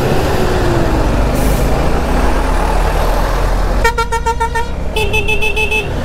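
Steady motorcycle road noise and wind rumble. Near the end, a vehicle horn sounds twice, each blast just under a second long with a wavering pitch; the second blast has a shriller top.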